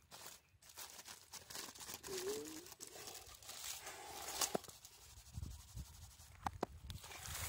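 Aluminium foil crinkling and tearing as gloved hands peel it open from a roasted sweet potato, with scattered sharp crackles and a few dull handling knocks in the second half.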